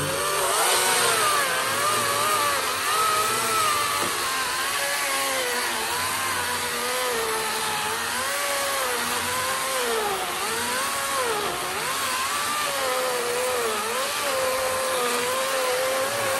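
Battery-powered Atlas 40-volt electric chainsaw cutting through a wooden telephone pole: a steady motor-and-chain whine over the rasp of the chain in the wood. The pitch repeatedly dips and recovers as the motor is loaded in the cut.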